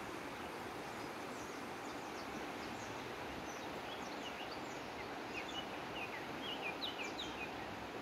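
Small birds chirping over a steady background hiss of outdoor ambience. The chirps are short, high and quick, and they come more often in the second half.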